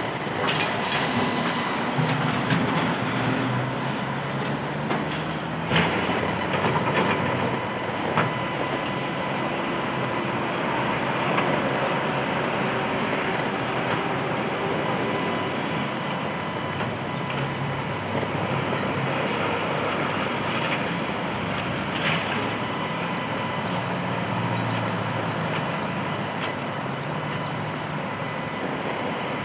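Continuous noise of heavy vehicles and construction machinery: engines running and rising and falling in pitch over a steady rumble, with a few sharp knocks or clanks.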